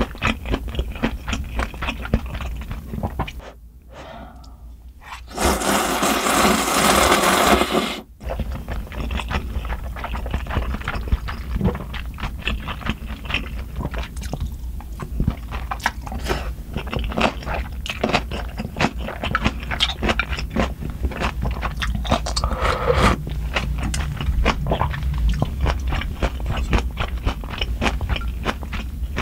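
Close-miked eating: slurping spicy soupy instant noodles and chewing, with many small wet clicks and crunches. About five seconds in, after a brief lull, comes a loud slurp lasting two to three seconds.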